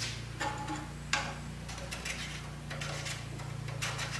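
A few short, light clicks and knocks at irregular intervals over a steady low hum.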